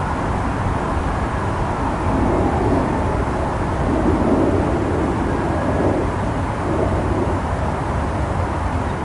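City street ambience: a steady, constant rumble of traffic.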